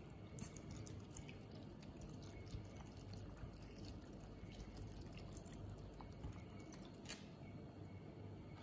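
Vinegar poured from a plastic bottle into a stainless steel pot of fish and vegetables: a faint trickle and dripping onto the ingredients, with a brief click about seven seconds in.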